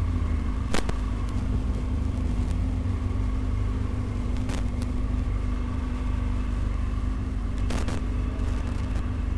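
Motorcycle engine idling steadily at a constant pitch, with a sharp click about a second in and another pair of clicks near the end.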